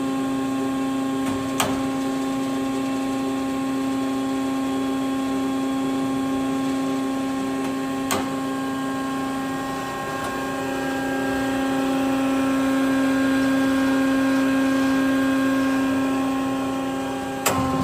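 Kysor Johnson horizontal band saw running: a steady hum of the drive motor and hydraulics with a low steady tone, as the saw head feeds down at a raised feed rate. The hum swells slightly in the second half, and three sharp clicks come about 2 s in, about 8 s in and near the end.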